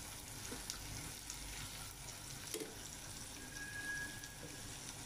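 Onions, chillies and curry leaves frying in oil in a kadai, sizzling faintly, with a few light ticks.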